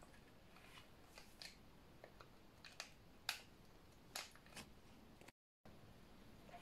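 Near silence broken by a handful of faint, sharp clicks and ticks from a spoon and a foil sachet being handled over a plastic cup of slime mixture, the loudest a little past halfway.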